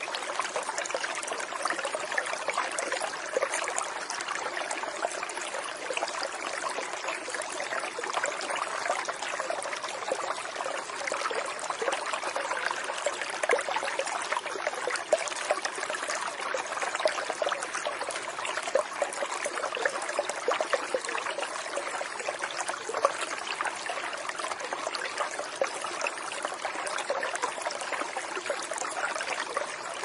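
Flowing water of a small stream, trickling and babbling steadily without a break.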